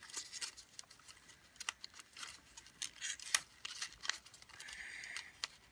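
Folded origami paper units being handled and tucked into one another by hand: irregular crisp paper crinkles and small clicks, with a short sliding hiss near the end.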